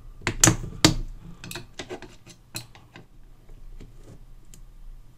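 Small metal clicks and taps as the rusted tone-arm pivot of a Garrard 202A record player is twisted and pried loose from its mount. Two sharper clicks come in the first second, then lighter scattered clicks that thin out.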